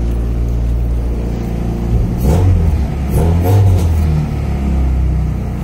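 Honda H22 four-cylinder engine in an EK Civic running at a high idle, revved up twice about two and three seconds in and settling back. The owner thinks the high idle could come from pulling up the throttle pedal, or from a vacuum leak.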